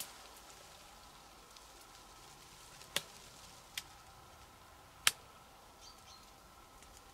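Three short, sharp clicks over a faint, steady background: one about three seconds in, a weaker one just after it, and the loudest about five seconds in.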